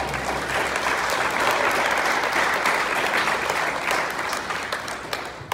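Audience applauding, building up and then dying away near the end.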